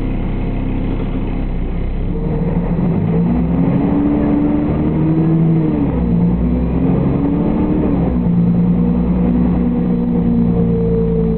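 Engine and drivetrain of a 2004 Solaris Urbino 12 city bus, heard loud inside the passenger cabin as the bus accelerates. The engine note climbs from about three seconds in, falls back sharply as it changes gear about six seconds in, climbs again, falls back with another gear change near eight seconds, then settles into a steady run.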